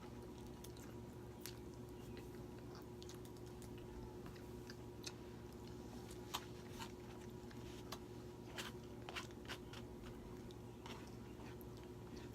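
Faint sounds of people eating spaghetti: scattered small mouth clicks and smacks of chewing, over a steady low hum.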